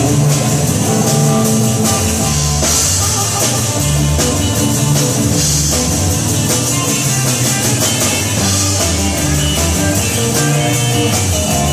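A rock band playing, with a drum kit keeping a steady beat under guitar.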